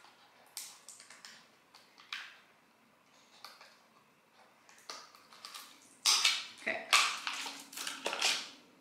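A sealed cardboard blind box being ripped open by hand: a few small scattered tearing crackles, then a couple of seconds of loud crinkling and tearing of the packaging near the end.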